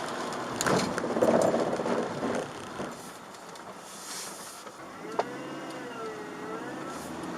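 Road and tyre noise inside a Chevrolet Aveo driving on wet streets, with a louder swell of hiss in the first couple of seconds. From about five seconds in, a siren wails, rising and falling slowly in pitch.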